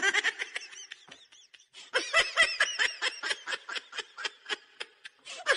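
High-pitched laughing in a quick run of short 'ha-ha' pulses, about five a second, breaking off briefly about a second in and then going on.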